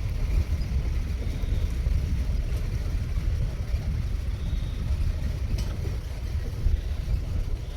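Gypsy safari jeep driving along a forest track: a steady low rumble of engine and tyres.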